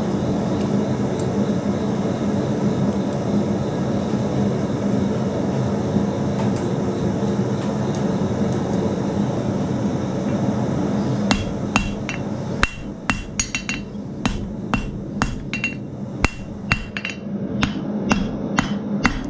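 A forge runs with a steady noise for the first half. About eleven seconds in, a blacksmith's hammer starts striking steel on the anvil, about two or three ringing blows a second, irregular, continuing to the end.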